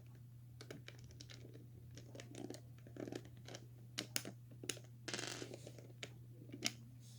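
Plastic Lego bricks being handled: faint, irregular clicks and taps, with a brief scraping rustle about five seconds in.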